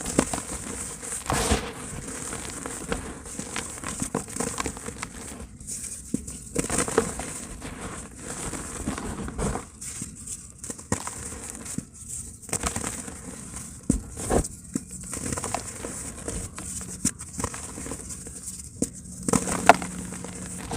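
Dry pure cement crumbling in a tub: irregular gritty crunching and crackling with short pauses, and one sharper snap near the end.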